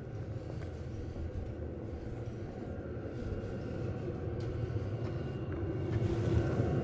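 Vevor 8 kW diesel air heater running: a steady low combustion rumble with a faint steady fan tone over it, growing louder near the end.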